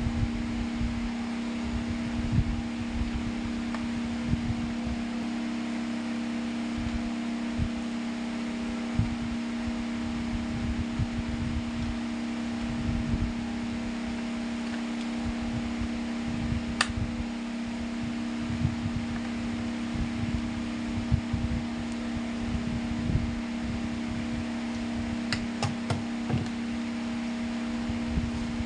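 A homemade table fan driven by a small 12 V DC motor runs steadily with a constant hum, over irregular low rumbles of air on the microphone. There is a sharp click about seventeen seconds in and a few more clicks near the end.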